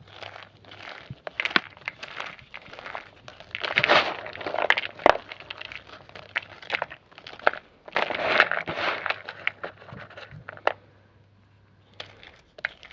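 Homemade grey gym chalk being crushed: a run of dry crunches and sharp cracks as the chalk breaks and crumbles. It is loudest about four seconds in and again around eight to nine seconds in, then thins to a few scattered crackles near the end.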